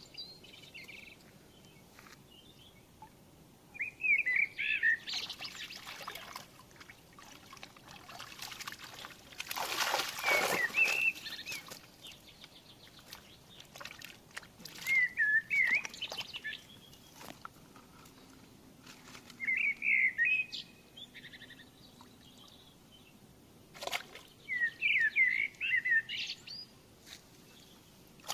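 A songbird singing short warbled phrases, repeated every four to six seconds. About ten seconds in comes a louder rushing, splashy noise lasting a second or two, with scattered clicks here and there.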